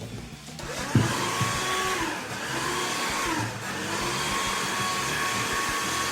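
Electric drill with a metal bit starting up about half a second in and running steadily, its whine dipping briefly twice as the bit loads up while drilling out a metal snap rivet.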